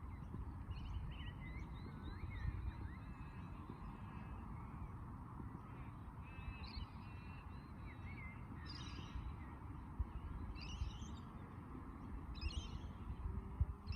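Birds calling: thin whistled notes and chirps in the first half, then a harsh call repeated about every two seconds, four times, over a steady low background noise.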